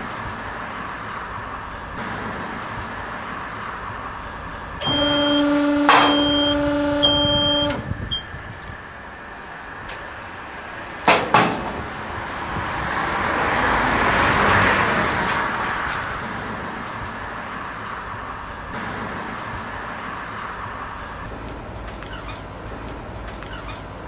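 Tyre baler running with a steady mechanical hum. About five seconds in, a pitched horn-like tone sounds for about three seconds. Two sharp knocks follow near the middle, then a louder rush of noise that rises and fades.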